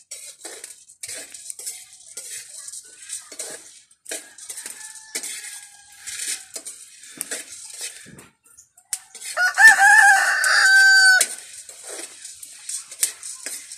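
A rooster crowing: a faint crow a few seconds in, then a loud, wavering crow of about two seconds near the end. Scattered small clicks and crackles run underneath.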